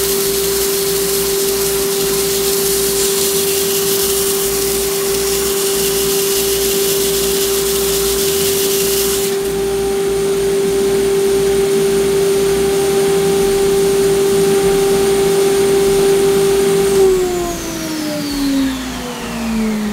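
SAMCO long-belt stroke sander running with a steady motor hum while an aluminium plate is linished under the belt with the hand pad. A sanding hiss on top stops about halfway through. Near the end the sander is switched off and winds down, its pitch falling.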